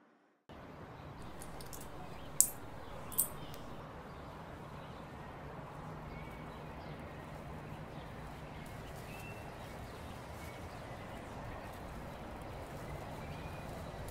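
Street ambience: a steady hum of traffic with faint short bird chirps now and then. It starts after half a second of silence, and two sharp clicks come close together about two and a half seconds in.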